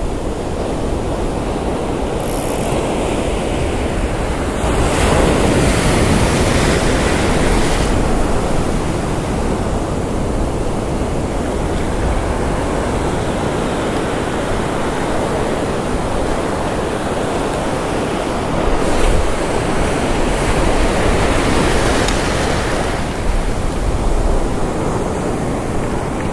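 Breaking surf and foaming whitewater washing close around, with wind on the microphone. The wash swells louder about five seconds in and again around nineteen seconds.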